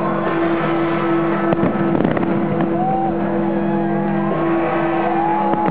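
Music for the fireworks display playing over loudspeakers: a held low chord with a melody line gliding above it. A few sharp firework bangs come about one and a half to two seconds in.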